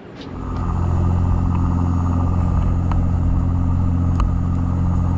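Dive boat's engine running under way, a steady low drone with water rushing past the hull; it swells up over the first second, then holds even.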